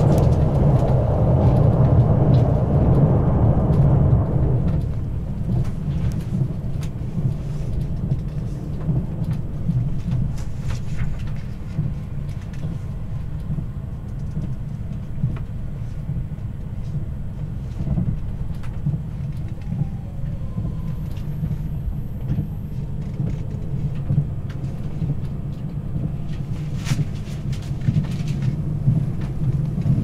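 Passenger train running, heard from inside the carriage: a steady low rumble of wheels on rails and running gear. It is fuller and louder for the first four seconds or so, then settles into a lower, quieter rumble.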